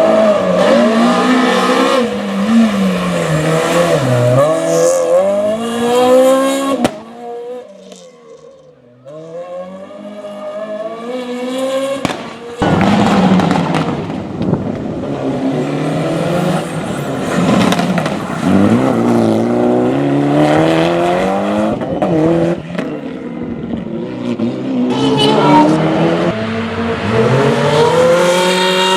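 Rally car engines driven hard, revving up and falling back over and over as they change gear and brake for corners. The sound fades about seven seconds in, and a loud engine cuts back in abruptly about five seconds later and keeps revving.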